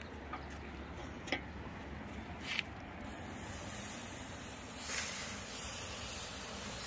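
A few light metal clanks from the lid and grate of a small portable charcoal grill, then, about three seconds in, the steady high sizzle of a seasoned trout cooking over hot coals, swelling briefly about five seconds in.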